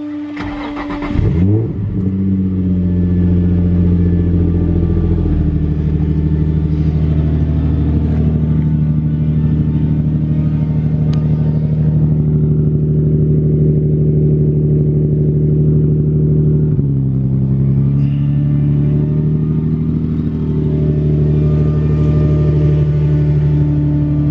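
Infiniti G35's 3.5-litre V6 on a cold start: the starter cranks and the engine catches with a quick flare about a second in, then settles into a fast, steady cold idle that steps down in speed twice as it warms.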